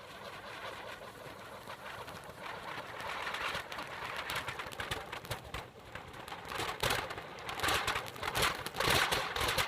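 Anar firework fountains on a running table fan's blades, a hissing, crackling spray of sparks that grows louder and denser through the second half.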